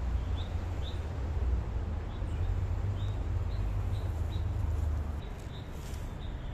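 Small bird chirping: short high chirps repeated in spells about twice a second, over a low steady rumble that eases about five seconds in.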